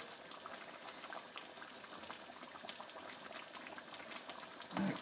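Thick tomato sauce with pork offal simmering in a pot, bubbles popping softly and continually.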